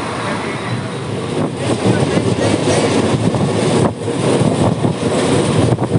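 Mumbai suburban local train running: a loud, steady rattle and rumble of the carriage on the rails, with voices mixed in.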